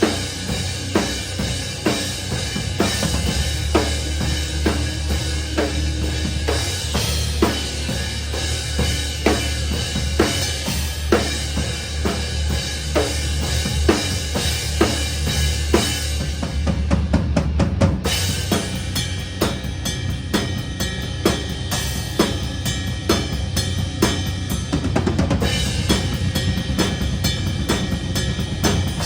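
Live metalcore drumming heard close up from the drum kit, with the band's low-end rumble underneath. The snare strikes about twice a second over bass drum and cymbals, with a run of rapid hits a little past the middle.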